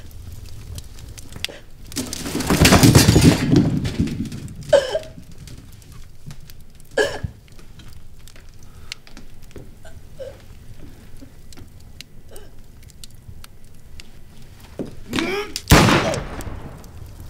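Film soundtrack with two loud sudden hits: a rough, crashing burst about two seconds in that fades over a second or so, and a sharp bang near the end. Short vocal cries come between them and just before the bang.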